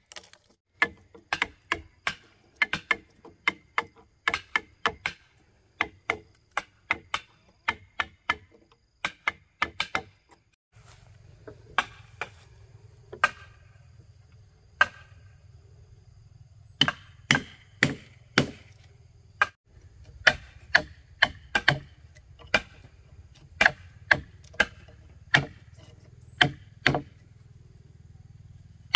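Repeated sharp blows of a hand tool striking wood, about two a second, in runs with a sparser stretch in the middle: woodworking on a timber house frame.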